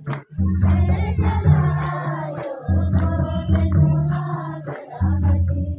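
Kurukh devotional song (bhajan): voices singing over a heavy bass line, with a regular high jingling percussion beat about three times a second.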